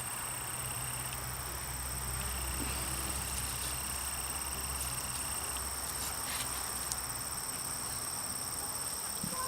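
Insects trilling steadily in a continuous high-pitched chorus, over a steady low hum.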